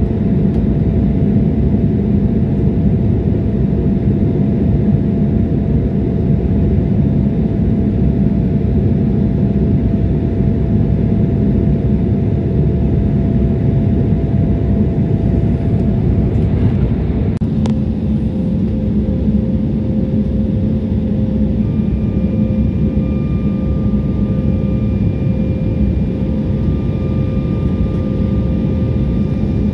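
Steady roar of airflow and turbofan engines inside the cabin of an Embraer E175 jet airliner in flight, with a faint engine whine over it. About halfway through there is a click, and after it the whine sits lower in pitch.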